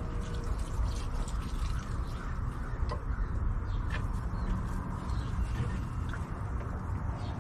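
Birds calling faintly over a steady low background rumble, with a couple of light knocks a few seconds in.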